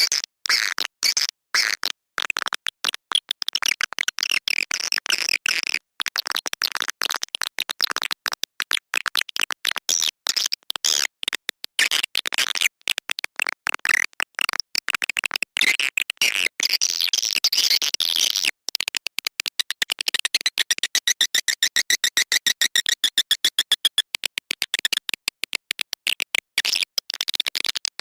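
Recorded edible-nest swiftlet calls: dense, rapid twittering chirps and clicks, settling into a fast, even run of chirps about two-thirds of the way through. It is a swiftlet lure-call track, played to draw swiftlets into a swiftlet house.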